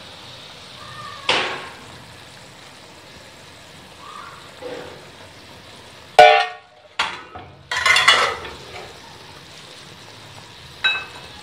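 Jaggery syrup sizzling and bubbling in hot ghee in a metal pot. Over the steady sizzle come sharp metal clinks and scrapes of a steel spoon against a steel pot and strainer: one knock a little over a second in, then a loud ringing clink about six seconds in, followed by a run of clanks and scrapes and one more clink near the end.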